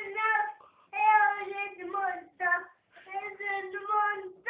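A young child singing in a high voice, holding long notes in several short phrases.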